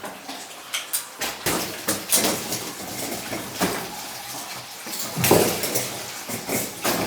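Irregular metallic clinks and knocks of tools and pipe fittings being handled at a burst mains water joint, the loudest cluster about five seconds in.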